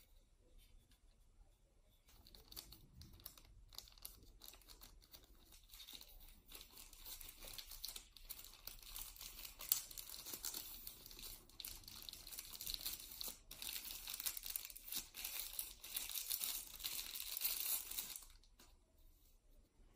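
Plastic packaging crinkling and tearing as small accessories are unwrapped by hand: a dense run of crackles that starts about two seconds in, grows louder in the second half and stops suddenly near the end.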